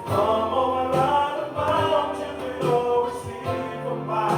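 Background music with singing voices holding long sung notes.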